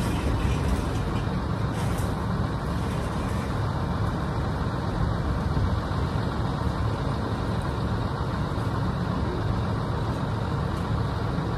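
A vehicle running, likely the truck that tows the scrap trailer: a steady low rumble of engine and road noise with no breaks or knocks.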